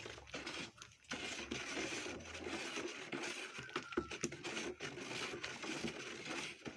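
A wooden stick stirring water mixed with caustic soda in a plastic bucket: a steady swishing that starts about a second in, with a few knocks of the stick against the bucket.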